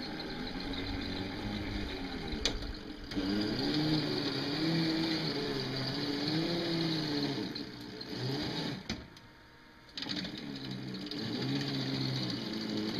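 Homemade battery-electric bulldozer's motor whining as it drives and pushes through a dirt pile, its pitch rising and falling with the load. The motor stops for about a second about two-thirds of the way in, then starts again.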